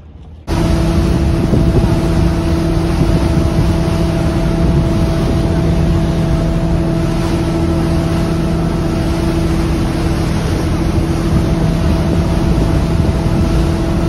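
Boat engine running steadily underway, heard from aboard: a constant-pitch drone over rushing water and wind noise. It cuts in abruptly about half a second in.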